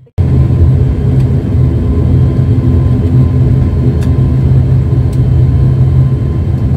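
Turboprop engines of an ATR 72 airliner running, heard inside the cabin while it taxis: a loud, steady drone with a low, even propeller hum.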